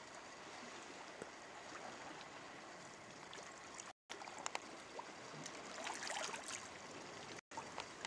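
Small waves lapping faintly against shore rocks, with a slightly louder patch of splashing about six seconds in.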